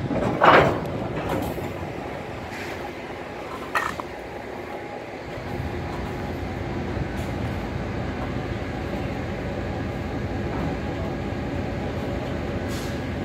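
Hopper railcar being pushed slowly along the rails by an axle indexer railcar mover. There is a loud clank about half a second in and a sharper knock near four seconds, then steady mechanical running noise as the steel wheels roll on the rail.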